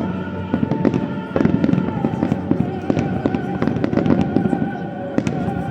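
Fireworks display in full barrage: a dense run of rapid bangs and crackling, with music playing along underneath.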